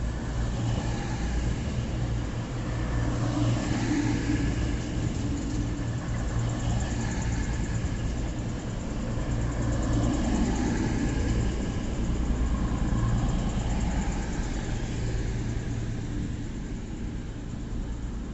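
Diesel train engine running with a steady low hum that swells a little a few times.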